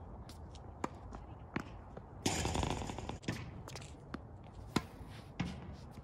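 Tennis rally on an outdoor hard court: scattered sharp knocks of the ball being struck and bouncing, with footsteps on the court. A loud rushing noise lasts about a second near the middle.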